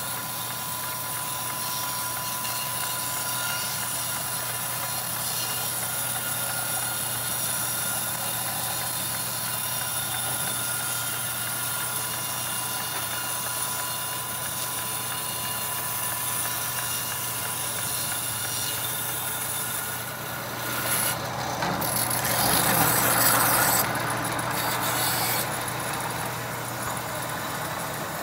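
Horizontal band sawmill running steadily as its blade cuts through a mahogany log: a constant mechanical drone with several high steady tones over it. About twenty seconds in, a louder rushing hiss swells for a few seconds and then settles back to the steady drone.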